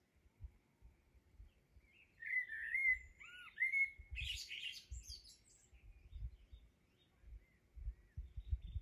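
A songbird sings one short phrase about two seconds in: a gliding, warbling run of notes, then a burst of high twittering, with fainter chirps after it. Low rumbling noise comes and goes underneath.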